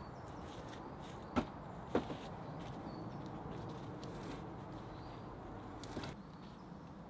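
Wooden knocks as a long log pole is handled and set onto a log roof frame: two sharp knocks about a second and a half and two seconds in, and a lighter one near the end, over a steady outdoor hiss.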